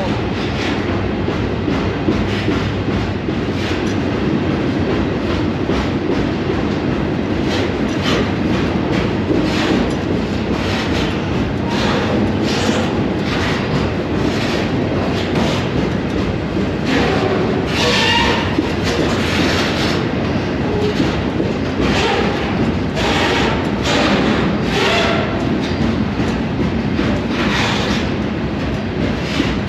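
Freight train rolling along the track, heard from aboard a car: a steady loud rumble with wheels clattering over rail joints and cars clanking. Brief high-pitched squeals from steel wheels on rail come a little over halfway through.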